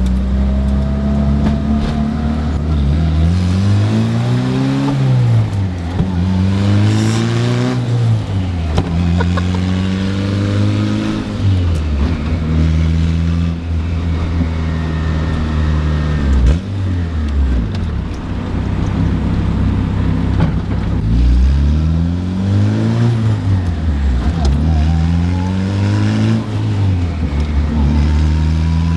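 Turbocharged Honda B-series four-cylinder engine accelerating hard through the gears, its pitch climbing and then dropping at each shift, several times over.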